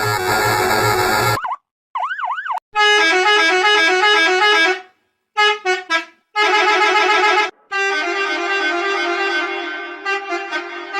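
A string of different bus horn sound variations cut back to back: a brief warbling wail, then several multi-note musical horns playing short tunes, one of them in a few quick blasts.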